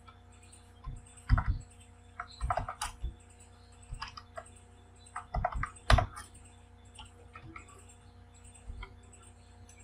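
Computer keyboard being typed on in short, irregular bunches of key taps, with the loudest strokes about three and six seconds in, over a faint steady hum.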